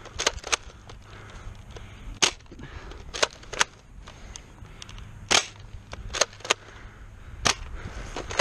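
About ten short, sharp clicks, spaced unevenly and some coming in quick pairs, over a faint low rumble.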